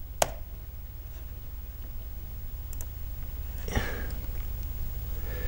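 A single sharp click at the computer about a quarter second in, then a few faint clicks and a soft knock near four seconds, over a low steady hum.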